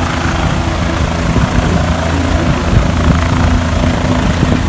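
Helicopter in flight, heard from on board: the steady, loud rotor and engine noise, with a constant low hum running under it.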